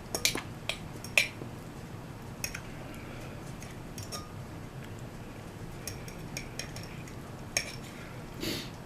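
Eating utensils clicking and clinking against a bowl of ramen noodles: a few scattered sharp clicks, a quick cluster in the first second and then single ones spread out, with a brief rushing sound near the end.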